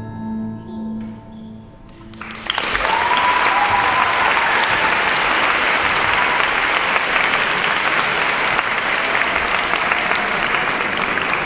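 The last low note of a Chinese orchestra fades over about two seconds. Then the audience starts applauding, steadily, with a drawn-out cheer from the crowd soon after the applause begins.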